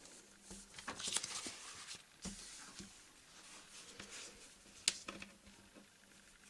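Faint handling sounds of a plastic ruler and foamiran sheet being shifted and pressed flat on a wooden table: short scraping rustles, and one sharp tap near five seconds in.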